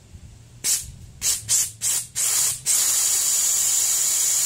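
Compressed air from a blowgun hissing through a boat's rubber speedometer pitot line to clear out blockage. It comes as several short blasts, then a steady blast from just under three seconds in.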